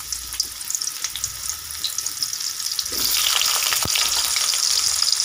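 Pieces of pointed gourd (potol) sizzling in hot oil in a kadai, with scattered crackles. The sizzle gets clearly louder about three seconds in, as more pieces go into the oil.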